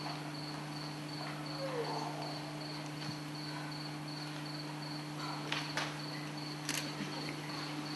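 High-pitched, evenly pulsing cricket-like chirping over a steady low hum, with a few faint knocks about two-thirds of the way through.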